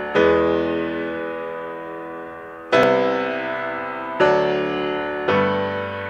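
Background music: slow chords, each struck and left to fade, four in all.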